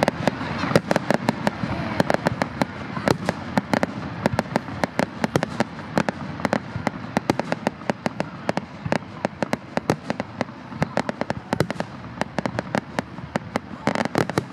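Fireworks exploding in a dense run of sharp bangs and cracks, several a second, with no let-up.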